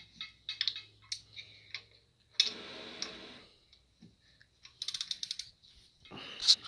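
Socket ratchet clicking in short runs as bolts on an engine adapter plate are turned, with a quick string of clicks about five seconds in.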